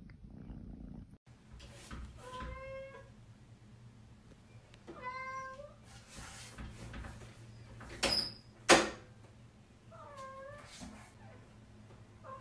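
A cat meowing three times, short calls spaced a few seconds apart. Between the second and third meows come two sharp knocks on a door about half a second apart, the loudest sounds.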